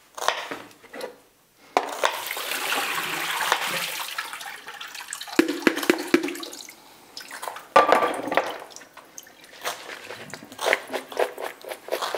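Kitchen tap running water for a few seconds, then stopping, followed by scattered clinks and knocks of things being handled in the kitchen.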